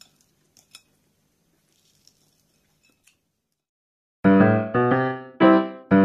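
A few faint clicks, then about four seconds in, piano music starts: loud repeated chords, each struck and fading, roughly two a second.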